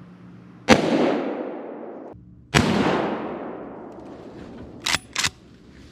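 Two deer-rifle shots about two seconds apart, each trailing off in a long echo; the first cuts off abruptly. Near the end come two short, sharp sounds close together.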